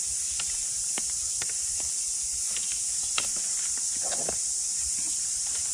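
Scattered faint clicks and snips of a hand-held prototype grafting shear making whip-and-tongue cuts on a kiwifruit rootstock, over a steady high-pitched hiss.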